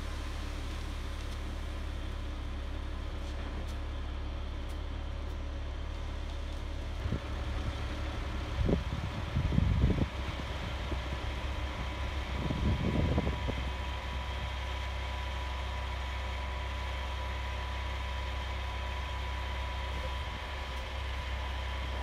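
Concrete mixer truck's diesel engine running steadily, with a faint steady whine, while its drum turns and pours concrete down the chute. Two louder, irregular low rumbles come about a third of the way in and again a few seconds later.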